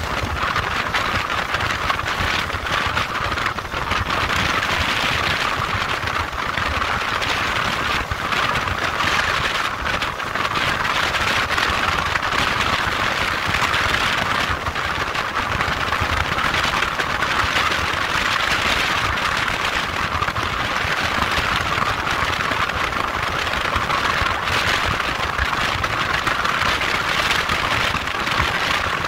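Motorcycle engine running with a steady rushing noise over it, unchanging throughout.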